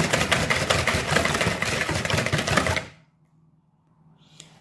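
Wire whisk beating egg yolks, sugar and melted butter in a bowl, a rapid, steady clicking that stops abruptly about three seconds in.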